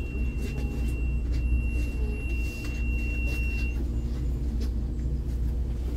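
MAZ-216 bus cabin: steady low engine rumble, with a thin high steady tone that cuts off about two-thirds of the way in.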